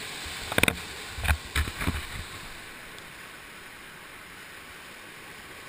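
Waterfall pouring down a rock gully, a steady rush of water. In the first two seconds there is a cluster of sharp knocks and clatters.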